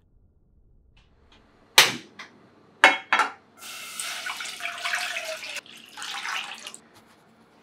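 A few sharp clicks or knocks, then water poured from a glass jug into a saucepan on a gas stove, splashing in a steady stream for about three seconds with a brief break partway through.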